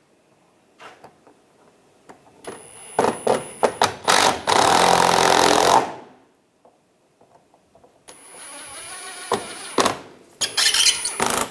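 Cordless impact driver running screws into the plastic lower bumper cover, twice. Each run starts with a high whine as the bit spins the screw in, then becomes a louder, harsher hammering as the screw tightens down, about two seconds in and again near the end.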